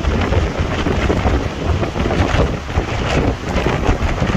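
Hurricane Ian's wind gusting hard across the microphone: a deep, uneven rumble under a broad rushing hiss that swells and drops every moment.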